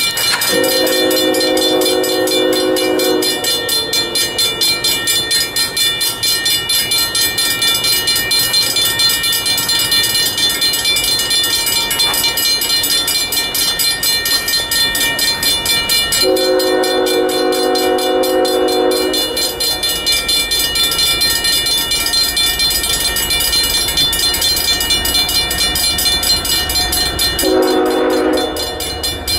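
Grade-crossing bell ringing steadily while an approaching Norfolk Southern freight, led by GE ES44AC 8062, blows its multi-note air horn for the crossing: two long blasts and then a short one near the end. The train's low rumble builds near the end as it nears the crossing.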